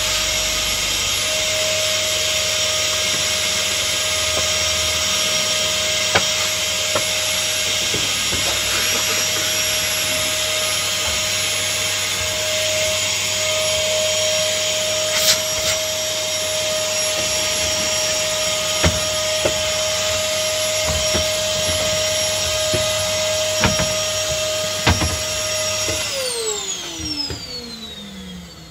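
Household vacuum cleaner running steadily at full power, a constant whine over rushing air, with a few light knocks. About 26 seconds in it is switched off and the motor winds down, its whine falling in pitch as it slows.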